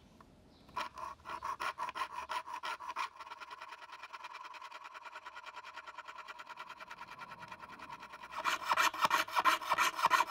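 Jeweler's saw cutting a thin sheet-metal lure blank with rapid, even rasping strokes, several a second, getting louder near the end.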